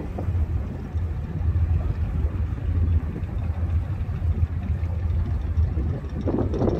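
A boat's engine running steadily: a continuous low drone with no change in pace.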